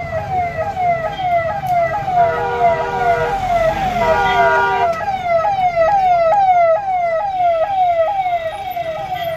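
Police jeep's electronic siren in a passing convoy, giving a fast falling yelp that repeats about two and a half times a second. Steady vehicle horns blare over it twice in the middle and again near the end, above the rumble of engines.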